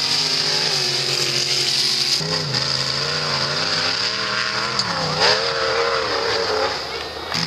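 Off-road 4x4 engines running hard at full throttle, the pitch wavering rapidly up and down as the throttle is worked. About two seconds in, the sound changes abruptly to a second engine, a truck climbing a steep dirt hill.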